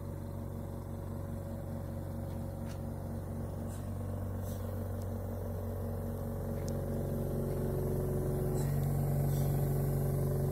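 Medical oxygen concentrator's compressor running with a steady hum, swelling a little about eight and a half seconds in, with a few faint clicks.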